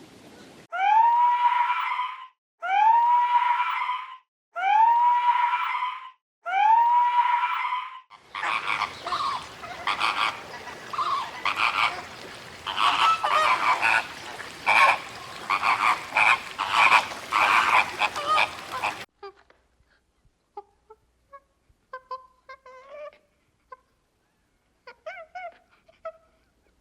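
A series of animal calls. First, four long calls about two seconds apart, each rising and then held on one pitch. Then about ten seconds of many overlapping, honk-like calls over a noisy background, and then a few faint, scattered short calls.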